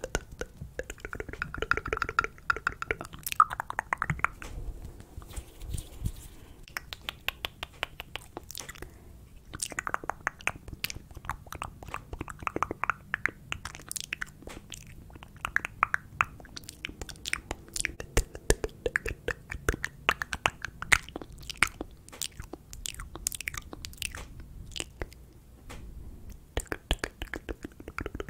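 ASMR mouth sounds made right at the microphone: rapid, irregular wet clicks, tongue clicks and lip smacks in dense flurries.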